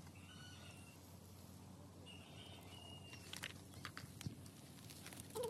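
Quiet rural ambience with faint distant bird calls, twice, and a few light clicks a little past halfway.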